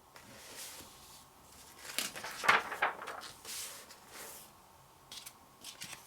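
Glossy magazine pages being turned and handled: soft paper swishes, with a louder crisp rustle of a page about two and a half seconds in and a few small taps near the end.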